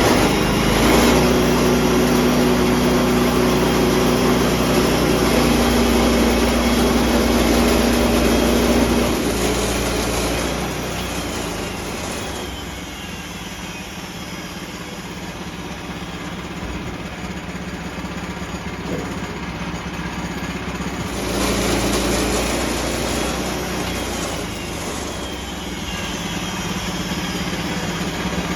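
A sawmill running as it saws an oak cant into boards, its engine steady and loud for the first nine seconds or so, easing off quieter for about ten seconds, then louder again about 21 seconds in.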